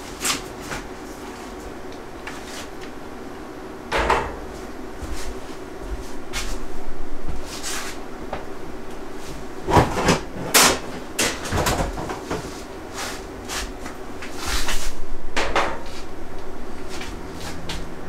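Metal caster wheels being handled and set down on an upturned steel rack frame: a series of clunks and knocks with some clatter, over a steady low hum.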